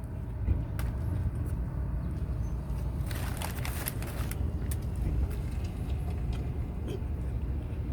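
Crunchy chewing of a toasted bagel sandwich close to the microphone, loudest about three to four seconds in, over a steady low rumble.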